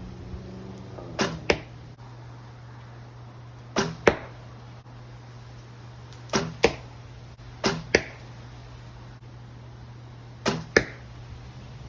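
Black Hunter recurve bow shot five times, a few seconds apart: each shot is a sharp snap of the string on release, followed about a third of a second later by a second sharp smack as the arrow strikes the target.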